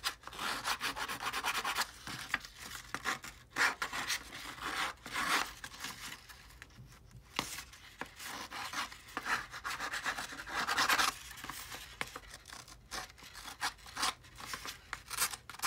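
Steel scissor blade scraped along the edge of ivory copy paper in short, irregular strokes, a dry rasping rub that roughens and distresses the paper edge to age it.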